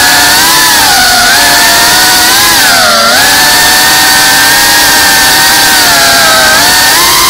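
FPV racing drone's brushless motors and propellers whining loudly from close on board, the pitch dipping and rising with the throttle: it drops about a second in and again near three seconds, then climbs near the end.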